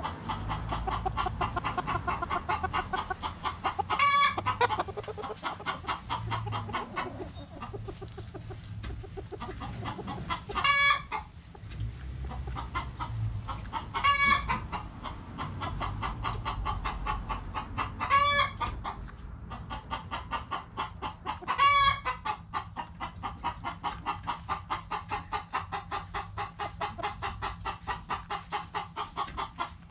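Backyard chickens clucking in a steady rapid stream, with a short, loud call repeated five times, roughly every three to six seconds.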